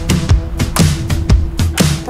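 Background music with a steady drum beat over held instrumental notes.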